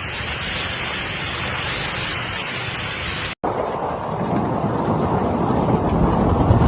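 Storm noise: heavy rain hissing steadily. About three and a half seconds in it cuts abruptly to a deeper, rumbling rush of storm noise.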